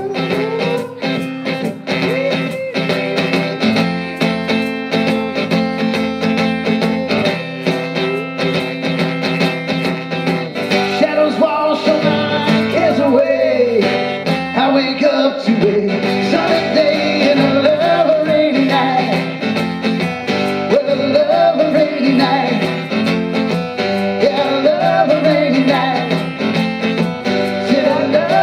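Acoustic guitar strummed steadily in a country-rock rhythm; about eleven seconds in, a singing voice comes in over it with a wavering melody.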